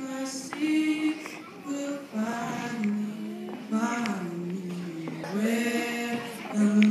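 Singing voices holding long notes that slide from one pitch to the next, with no steady beat.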